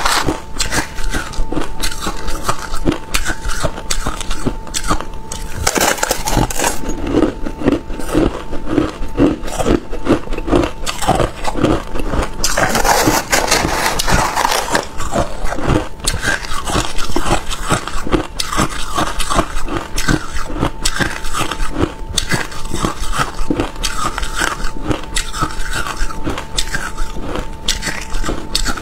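Crushed ice being bitten and chewed close to a clip-on microphone: a dense run of hard, crackling crunches, with a metal spoon scraping ice in a plastic tray. A faint steady tone hums in the background for much of the time.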